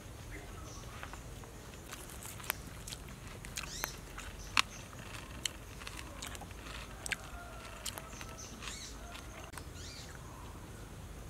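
Eating sounds: scattered sharp clicks and crunches of a person chewing crispy deep-fried fish and fresh vegetables, over a low steady background.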